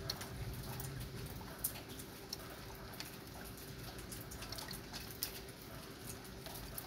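Light rain: scattered raindrops falling, heard as irregular sharp ticks and drips over a soft steady hiss.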